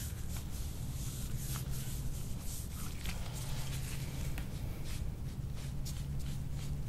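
A metal soft-tissue scraper drawn in short, repeated strokes over the skin of the back, a soft rasping friction sound, as in instrument-assisted scraping to pull apart adhesions. A steady low hum runs underneath.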